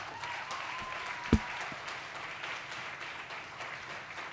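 Audience applauding steadily in a hall, with one loud thump a little over a second in.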